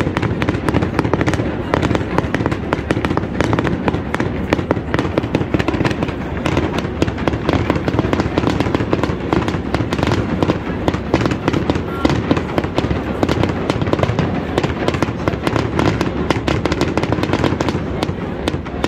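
Aerial fireworks display: a rapid, continuous barrage of bangs and crackling.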